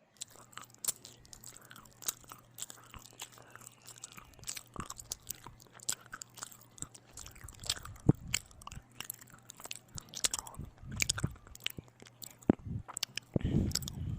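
Close-miked chewing and biting of bread with ham and tomato: a steady stream of wet mouth clicks and smacks, with a few heavier bites and swallows.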